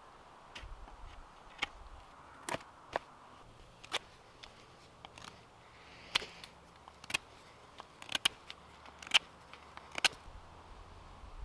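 Knife shaving the cut end of a wooden stick to take a sharp edge off: a dozen or so short, crisp cuts at an uneven pace, roughly one a second.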